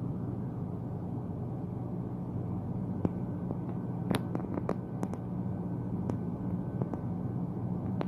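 Steady low machine hum, with scattered sharp clicks and taps starting about three seconds in.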